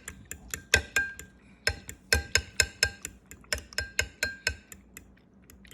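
Fork beating raw eggs and pepper in a bowl, its tines clinking against the bowl's side in quick, uneven strokes, about three or four a second, each with a short ring. The strokes pause briefly near the end.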